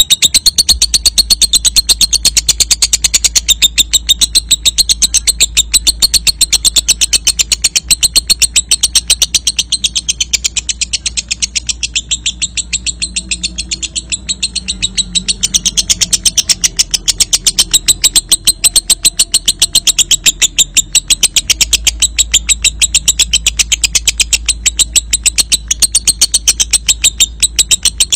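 Lovebird's long 'ngekek' song: a loud, unbroken run of rapid, shrill chattering notes repeated many times a second and kept up without a pause.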